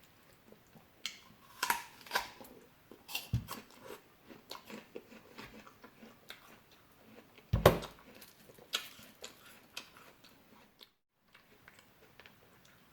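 A person chewing and biting into fresh fruit close to the microphone: wet, crunchy chewing with scattered sharp bites, the loudest a little after halfway through.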